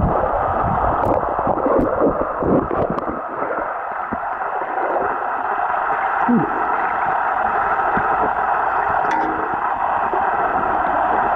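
Muffled underwater noise picked up by a camera submerged in a swimming pool: a steady hiss, with low knocks and thumps of moving water and the swimmer's strokes against the housing in the first few seconds.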